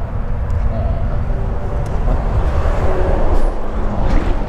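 Tractor-trailer truck driving past: loud, steady engine and tyre rumble that builds up over the last couple of seconds.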